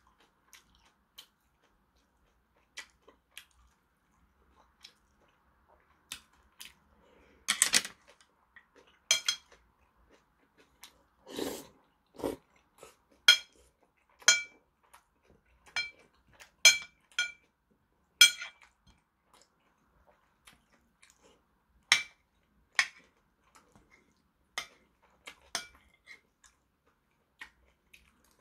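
A metal spoon clinking and scraping against a porcelain soup bowl, many light taps spread out, several with a short ringing tone, with chewing of dumplings and rice cakes in between.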